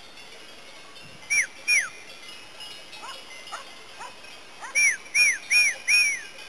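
Short, high whistled calls, each a quick rise and fall in pitch: two about a second and a half in, then four in quick succession near the end, with fainter, lower calls between them.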